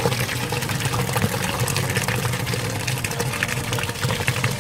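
Drinks pouring from four upturned cans into a plastic bucket: steady streams of liquid splashing.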